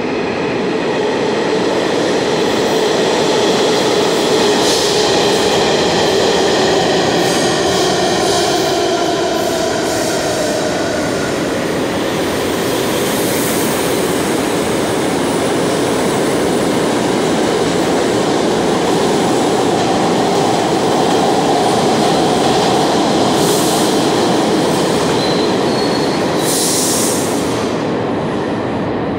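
New York City subway trains running through an underground station: a steady loud rumble and clatter of cars on the rails, with high wheel squeals now and then, the sharpest a little before the end.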